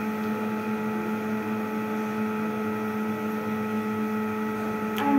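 A steady mechanical hum holding a few fixed tones, with a single sharp click near the end.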